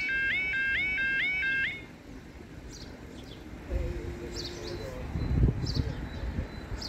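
UK level crossing audible warning alarm yelping, a repeating rising sweep a little over twice a second, which cuts off suddenly about 1.7 seconds in. Afterwards birds chirp and a low rumble rises about four seconds in.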